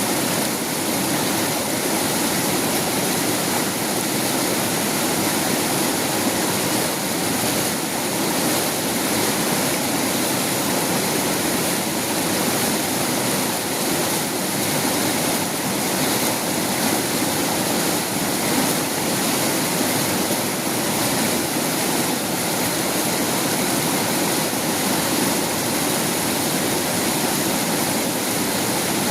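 Fast-flowing river water rushing, a steady, loud, unbroken wash of noise.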